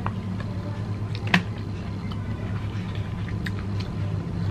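Close-up eating sounds of a person chewing food taken with wooden chopsticks: small clicks and mouth sounds, with one sharper click about a second and a half in. A steady low hum runs underneath.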